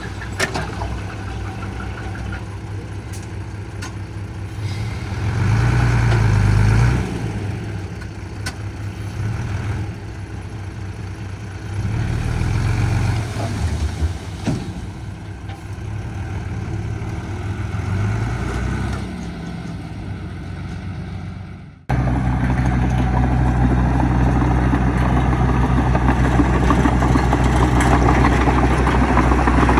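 Heavy diesel engine running, swelling three times as it is worked harder and then easing back. About two-thirds of the way through the sound cuts off abruptly, and a louder, steady diesel engine takes over.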